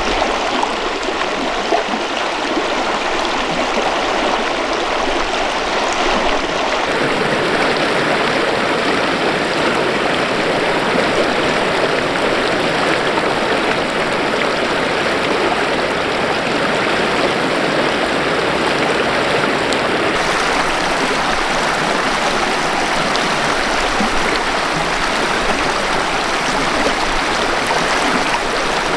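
Snow-country river rushing over rocks: a steady, dense rush of flowing water that shifts slightly in tone about seven seconds in and again about twenty seconds in.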